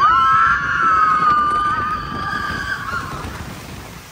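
Log-flume riders screaming: a high scream held for about three seconds, fading out near the end.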